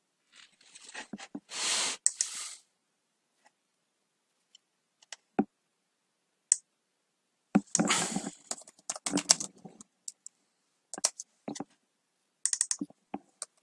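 Computer keyboard typing in irregular bursts, with single key presses or clicks between them and a dense run of typing in the middle. A brief rushing noise, louder than the keys, comes about two seconds in.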